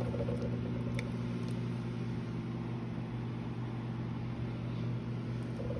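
A steady low mechanical hum with a faint click about a second in.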